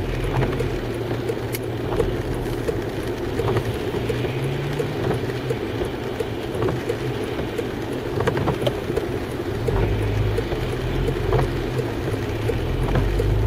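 Car cabin noise while driving in rain: a low engine hum and the hiss of tyres on a wet road, with occasional small clicks. The low engine hum grows louder about ten seconds in.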